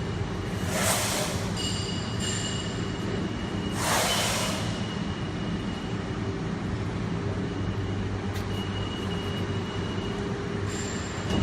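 Electro-hydraulic CNC press brake running: a steady hum from its hydraulic pump and motor with a thin high whine, and two short hissing bursts, about a second in and about four seconds in.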